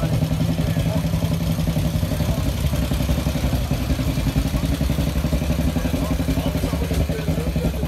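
Vintage motorcycle engines idling, a steady low pulsing run of firing strokes.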